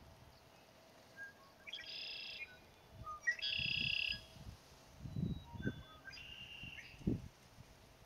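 Male red-winged blackbird singing its 'conk-la-ree' song three times, each a few short notes followed by a buzzy trill, the second song the loudest. A few low thumps fall between the songs.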